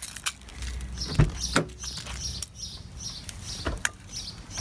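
A bird chirping over and over in the background, about two short high chirps a second, with a few sharp knocks and thumps, the loudest about a second in.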